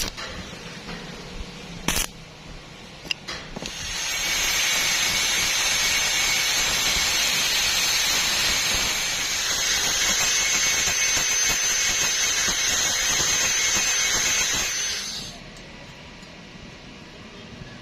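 Stick-welding arc burning on rusty angle iron with a steady hiss. It starts a few seconds in, runs for about eleven seconds and cuts off suddenly. A few sharp knocks come before it.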